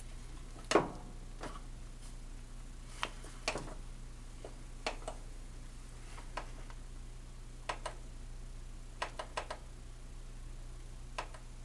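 Steady low electrical hum with about a dozen sharp, irregular clicks and knocks scattered through it.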